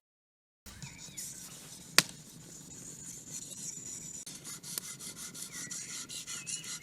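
A knife blade being sharpened on an abrasive stone: repeated rubbing, rasping strokes of stone on steel, coming as quick distinct strokes in the second half, with one sharp click about two seconds in.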